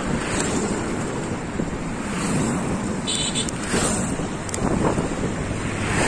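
Wind rushing over the microphone of a camera riding on a moving bicycle, a steady noisy roar, with a few brief clicks about three seconds in.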